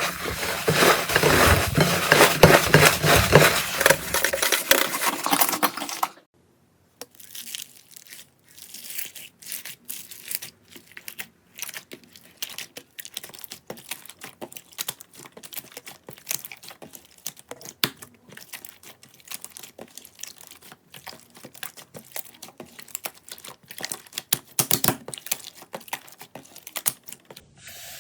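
Slime being squeezed and pressed by hand: dense, loud crackling and clicking for about six seconds, then after a short break quieter, sparser crackles and pops.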